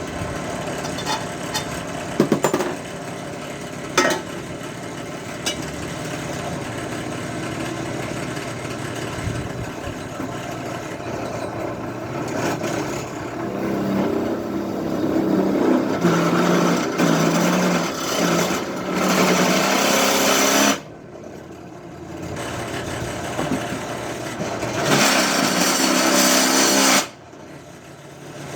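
Electric drill running steadily while drilling holes through flattened geodesic dome struts, with a few sharp clicks early on. Twice the bit bites in and the sound turns louder and harsher for several seconds, then drops back suddenly to the running hum.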